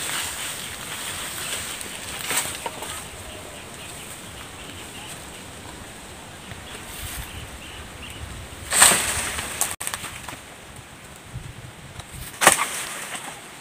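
Banana leaves and undergrowth rustling as someone pushes through them with a long bamboo pole, with two louder rustles about nine and twelve and a half seconds in.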